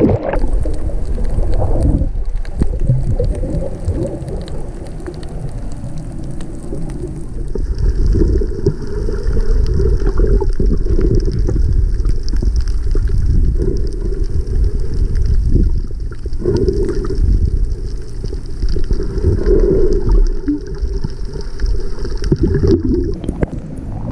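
Water moving around the camera, heard from underwater as a loud, muffled low rumble with occasional brief clicks. A faint steady high hiss joins from about seven seconds in.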